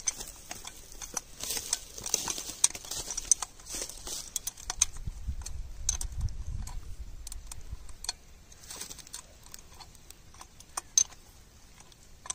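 Irregular light metallic clicks and clinks of a spanner working the bolts on the top coupling of a borewell submersible pump, with one sharper click near the end.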